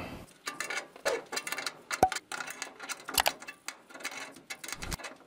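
Small crescent wrench working the brass compression fitting on a humidifier's water solenoid valve: scattered light metal clicks and clinks as it is tightened, the sharpest about two seconds in.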